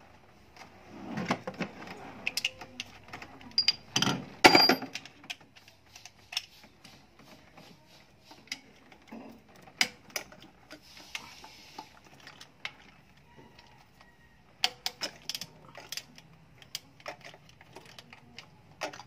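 Metal wrench clicking and clinking against bolts and fittings on the engine as parts are unbolted from the fuel delivery pipe. The sharp knocks come in scattered clusters, loudest about a second in, around four seconds and again near fifteen seconds.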